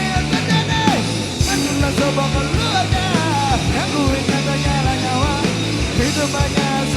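Rock band playing a punk-rock song live, with drums keeping a steady beat under a lead line that bends up and down in pitch.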